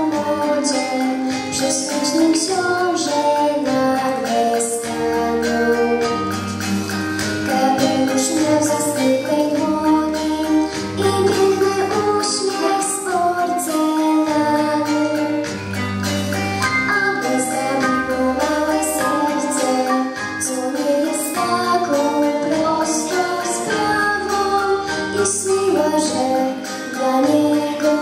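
A young girl singing a solo through a microphone and PA, over a backing track with a bass line and a steady high percussion beat.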